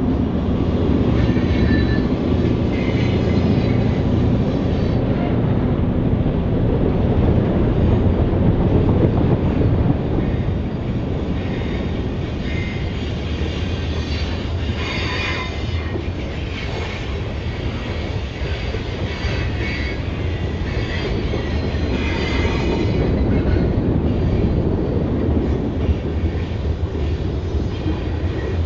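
A pair of EMD GP38-2 diesel-electric locomotives, each with a non-turbocharged 16-cylinder 645 engine, working hard under load with a loud, steady exhaust. Intermittent high wheel squeal from the train rounding curves cuts in, strongest about halfway through.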